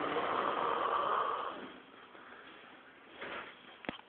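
A sleeping person snoring: one long snore lasting about a second and a half, then a quieter pause with a short soft breath. A sharp click comes near the end.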